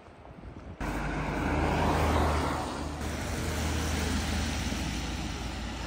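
A train running at speed, heard from inside the carriage: a steady rushing noise over a low hum that starts suddenly about a second in.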